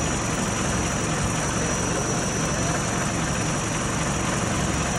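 Engine of a large truck idling steadily.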